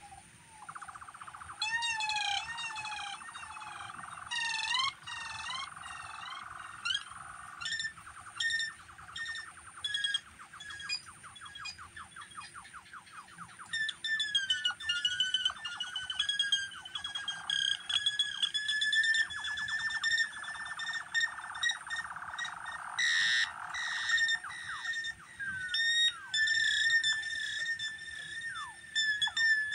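Electronic synthesizer noise: rapid sweeping chirps and warbling zigzag glides with fast pulsing trills, mostly in a middle-high register, over a steady thin high tone.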